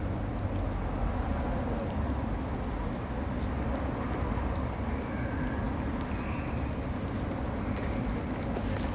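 A cat eating wet food close by, with faint clicks of chewing and licking, over a steady low rumble of traffic.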